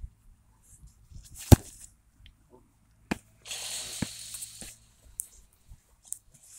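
A football struck with one hard kick, a single sharp thud about a second and a half in, followed a couple of seconds later by a brief rustling noise and a few light knocks.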